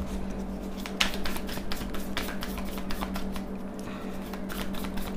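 A deck of tarot cards being shuffled by hand, the cards flicking against each other in quick, irregular clicks. A steady low hum runs underneath.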